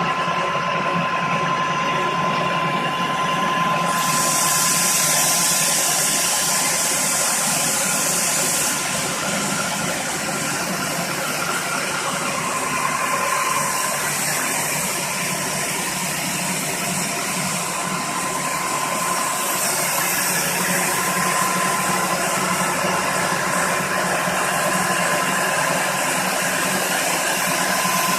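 A floor machine, of the kind used to grind and polish concrete, running steadily with a constant whine. A high hiss grows louder about four seconds in, drops back around nine seconds, and returns later.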